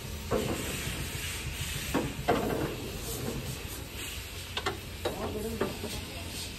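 Metal knocks and rattles from a truck's AC condenser being handled and fitted in front of the radiator: about six separate short clanks, some with a brief ring, over a steady low background rumble.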